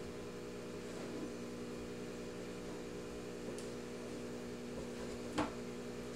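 A steady low electrical hum, with a faint click about three and a half seconds in and one sharp tap of a kitchen knife on a cutting board about five seconds in as ham is cut into cubes.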